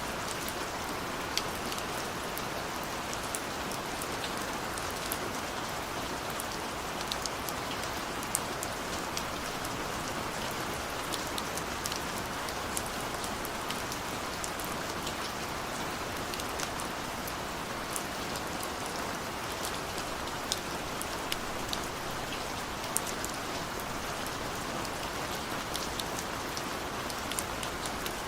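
Steady rain on a window: an even hiss with scattered sharp ticks of single drops striking the glass.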